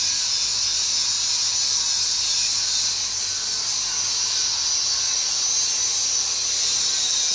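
Steady, even high hiss from TIG welding equipment on a stainless pipe root pass, unbroken throughout.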